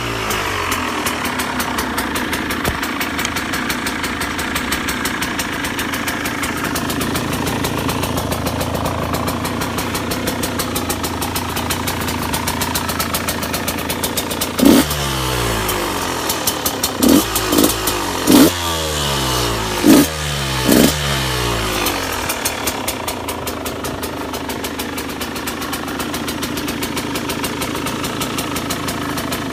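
2014 KTM EXC 125 two-stroke single-cylinder engine idling, then revved in five quick throttle blips about halfway through, each rising and dropping straight back to idle.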